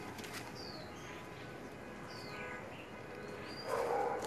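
A bird giving a few short, high, falling whistled calls, spaced well apart. Near the end a dog barks.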